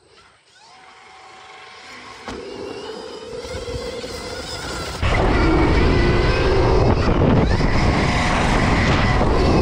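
A Stark VARG electric dirt bike's motor whining, growing steadily louder. About halfway through, a loud rush of wind on the microphone comes in over the whine.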